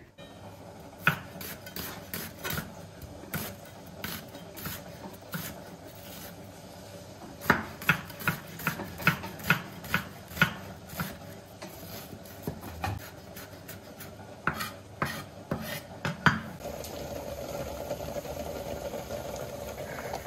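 Santoku-style knife chopping onion on a wooden cutting board: irregular knocks, settling into a run of about two to three chops a second in the middle. Near the end the knocks stop and a steady sizzle of sliced onions frying in a pan takes over.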